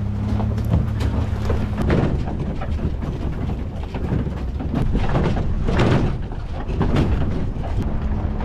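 Car driving slowly over a rough dirt and gravel track: a low engine hum with tyres crunching over stones, and several loud jolting thumps as it goes over bumps.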